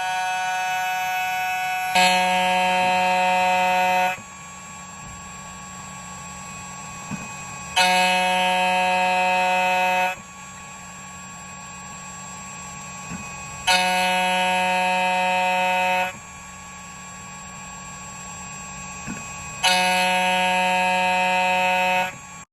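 Background music: a sustained electronic chord swells in for about two seconds every six seconds, four times, with softer held tones between.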